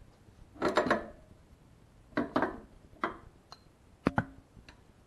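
Handling noises as the motorcycle's rear brake caliper is tied up out of the way: a few short clusters of clicks, knocks and rattles, the sharpest pair of knocks near the end.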